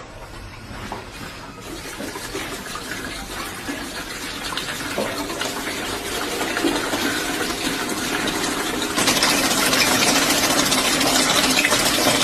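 A steady rushing noise, like running water, growing gradually louder and stepping up about nine seconds in.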